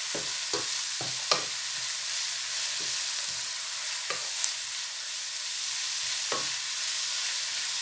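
Chopped vegetables sizzling in oil in a frying pan, a steady hiss, while a wooden spatula stirs them. The spatula knocks and scrapes against the pan a handful of times, the sharpest knock about a second and a half in.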